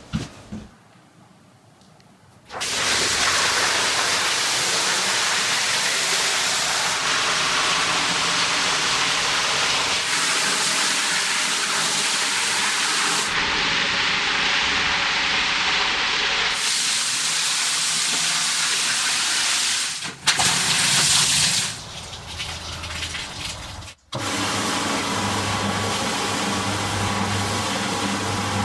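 Water rushing and hissing as it is worked through a soaked rug with a hose wand, in several cut-together stretches. In the last few seconds comes the steady motor hum of a rotary rug-scrubbing machine.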